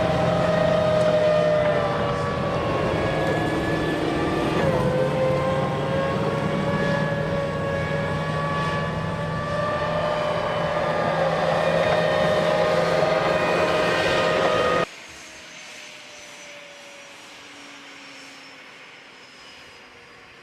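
Aircraft engine running with a loud, steady whine of several tones that shift slightly in pitch. It cuts off suddenly about fifteen seconds in, leaving a much fainter whine that slowly falls in pitch.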